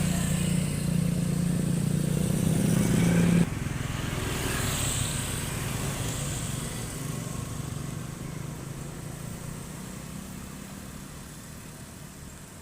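A motor vehicle engine running with a steady low drone that drops abruptly about three and a half seconds in, then fades gradually.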